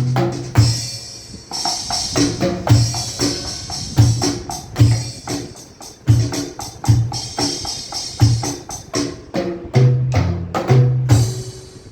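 Alesis Nitro Mesh electronic drum kit played in a steady groove: kick drum, snare and cymbals, with a run of pitched tom hits near the end.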